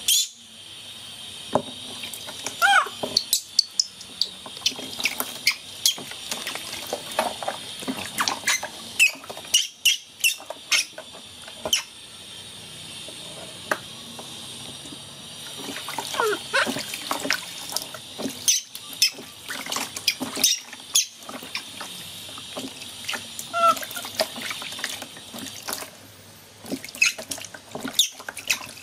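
Water splashing and sloshing in a plastic tub as a baby monkey is washed by hand, with many short splashes.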